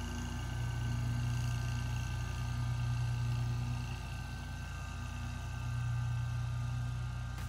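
Engine of a John Deere zero-turn riding mower running steadily as it mows, a continuous drone that swells and eases slightly.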